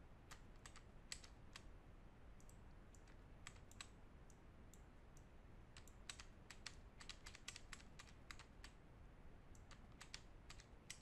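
Faint, irregular clicking of a computer mouse and keyboard, with clusters of quick clicks in the second half.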